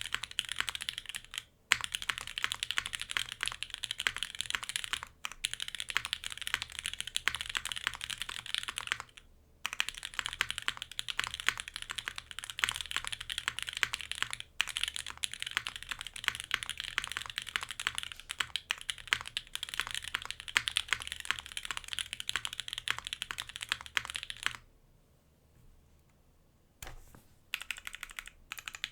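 Keycult 2/65 mechanical keyboard with lubed Alpaca linear switches on an aluminium plate and GMK keycaps, being typed on fast and continuously. There are a few brief breaks, and one longer pause of about two seconds near the end before typing starts again.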